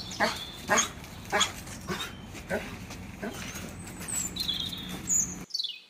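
German Shepherd giving a series of short yips and barks while jumping up, one every half second to a second; the sound cuts off abruptly near the end.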